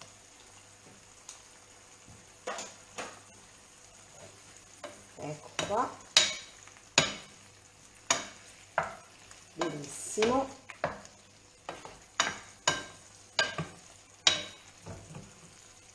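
A spoon stirring and tossing gnocchi in tomato sauce in a frying pan, with short scrapes and knocks against the pan about every second, starting a couple of seconds in.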